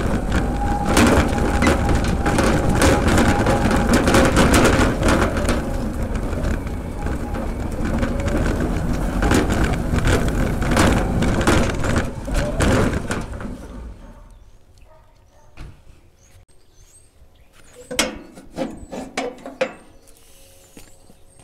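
Homemade electric lawn tractor rolling over rough, muddy yard ground: loud rattling of the chassis and tyre rumble, with many knocks, until it stops about fourteen seconds in. A few sharp knocks and clicks follow near the end.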